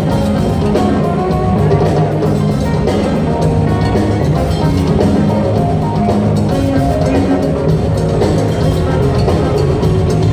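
Live rock band playing steadily: drum kit, electric and acoustic guitars and keyboards together.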